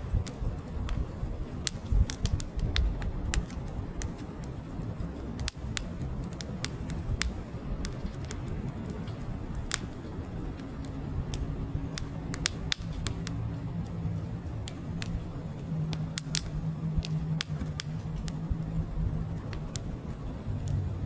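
Split logs burning in an open wood fire, crackling with frequent irregular sharp pops over a low rush of flame.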